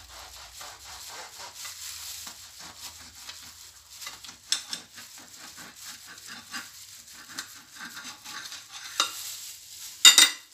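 Knife sawing through a toasted shawarma wrap on a plate: many short crackling, scraping strokes, with a few sharper clicks and one loud knock near the end.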